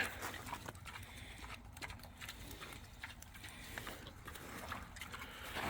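Pigs eating grain and corn: faint, irregular crunching clicks.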